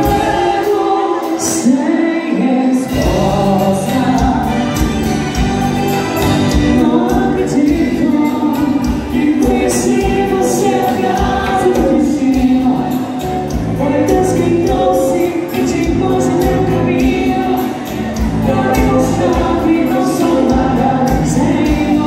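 Dance music with singing and a steady beat. The bass drops out just after the start and comes back in nearly three seconds in.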